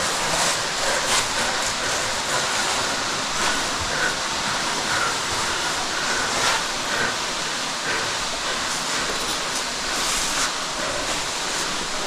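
Underground waterfall rushing steadily, an even wash of falling water that fills the cave, with a few faint clicks and knocks now and then.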